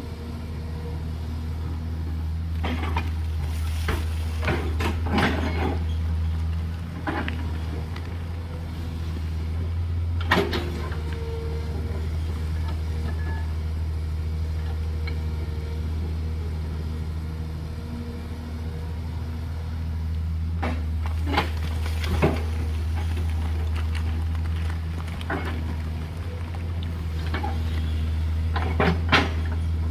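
JCB 210LC crawler excavator's diesel engine running steadily while it digs a gravelly slope, with scattered sharp knocks and clatters of the bucket and stones. There are several in the first few seconds, one about ten seconds in, a pair a little after twenty seconds and a couple near the end.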